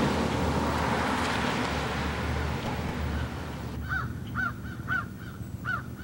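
A passing car's noise fading as it drives away, then a crow cawing repeatedly, about two caws a second, starting near four seconds in.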